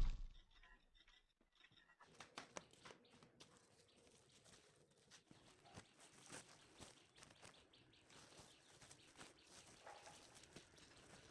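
Near silence: faint outdoor ambience with scattered faint ticks from about two seconds in.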